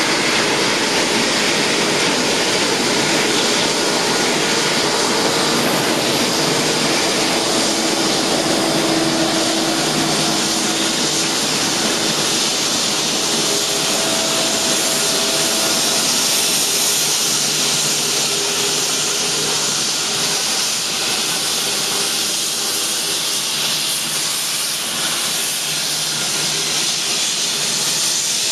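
Four-engine Airbus A340 airliner's jet engines running at taxi power as it rolls past: a steady rushing hiss with a faint hum whose pitch wavers, easing slightly in loudness in the latter part.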